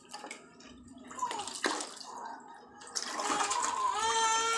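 Water splashing and sloshing, louder from about three seconds in. Near the end comes a high, drawn-out cry lasting about a second.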